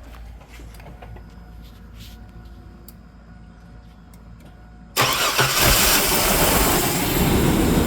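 A 2000 Chevy Blazer ZR2's 4.3-litre V6 starts about five seconds in and keeps running, loud and steady. The crank-no-start was cured by replacing a blown 15 A ECM fuse. Before it starts there are only a few faint clicks over a low hum.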